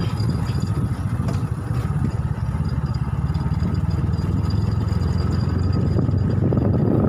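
Motorcycle engine running steadily with a low rumble, heard from on board the moving bike.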